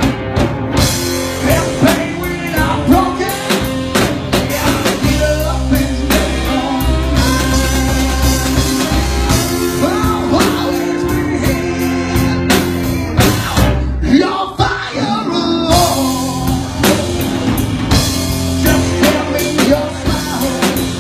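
Live blues-rock band playing, with drums hitting steadily under electric guitar.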